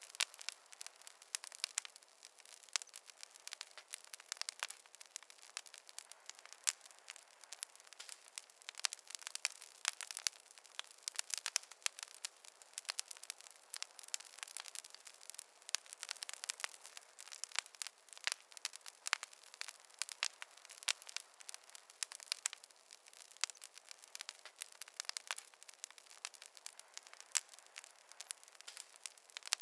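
Wood fire crackling, with a dense run of irregular sharp pops and snaps over a faint hiss.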